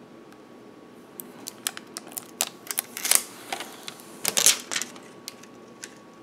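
Clear plastic protective film crackling and crinkling as it is peeled off the back of a smartphone. It comes as a run of sharp crackles, with two louder bursts about three and four and a half seconds in.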